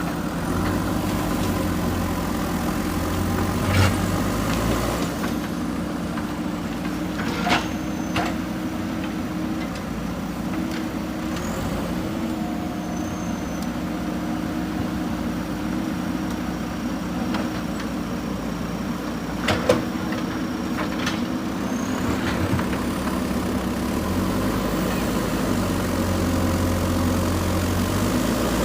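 JCB 3DX backhoe loader's diesel engine running steadily, working harder for a few seconds near the start and again near the end. A few sharp knocks sound over it, as from the bucket striking broken concrete.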